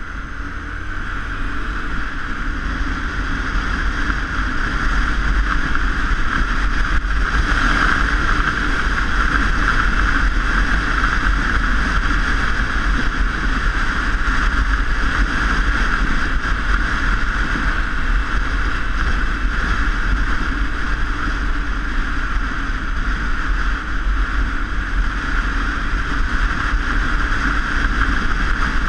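Steady wind and road noise while riding a bike, with deep rumble and a hiss, building over the first several seconds and then holding steady.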